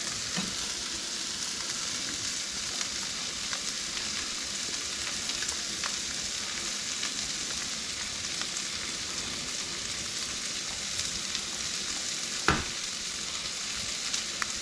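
Cabbage and onion sizzling steadily in bacon fat and butter in a skillet over high heat, with faint scraping ticks and one sharp knock about twelve and a half seconds in.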